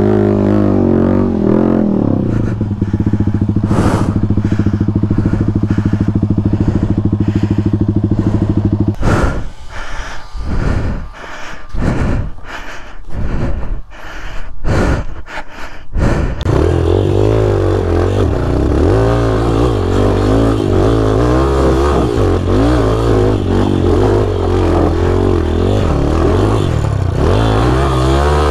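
Dirt bike engine running at steady revs for several seconds, then blipped in short bursts with brief drops between them, then revving up and down under load on a climb.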